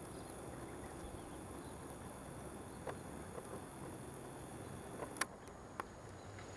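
Steady outdoor background noise in tropical undergrowth with a faint high insect hum, broken by a few short clicks, the loudest just after five seconds in.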